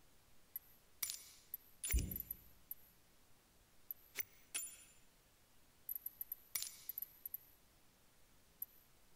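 Small hard objects clicking and clinking, with high ringing overtones, and one duller thump about two seconds in.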